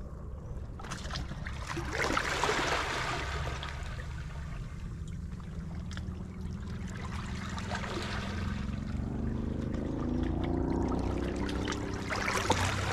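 Small waves lapping and trickling over shallow shoreline stones, over a low rumble. A faint rising drone comes in during the last few seconds.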